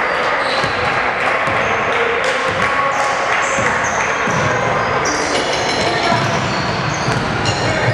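Basketball game in a gym: a ball bouncing on the hardwood floor and sneakers squeaking as players run, over the steady echoing din of the hall.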